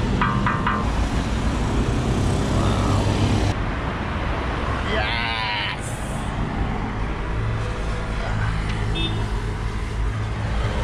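Steady roadside traffic noise from passing cars, with a few short knocks near the start.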